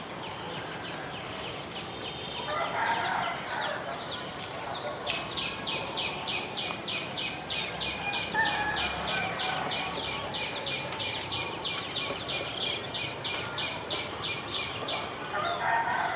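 Outdoor village ambience after rain, with bird calls. A fast, even series of high pulses, about four a second, starts about five seconds in and stops near the end. Short mid-pitched calls, like domestic fowl, come and go three times over a steady high hiss.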